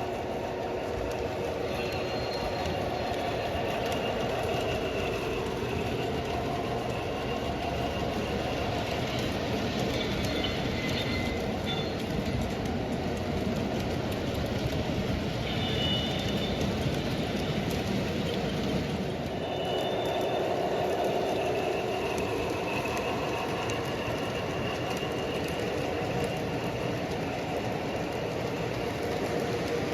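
Model train running on the layout track: a steady motor and wheel rumble, with a thin high squeal coming and going every few seconds.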